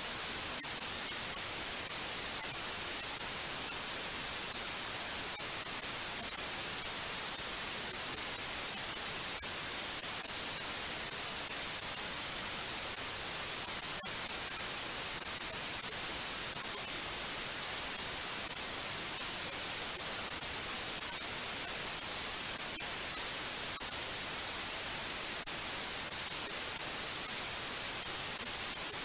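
Steady white noise: an even, unchanging hiss, strongest in the high frequencies.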